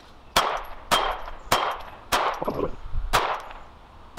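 Sig P238 .380 pistol firing five shots in quick succession, roughly half a second to a second apart, each trailing off briefly. The pistol cycles and feeds every 75-grain Interceptor round without a stoppage.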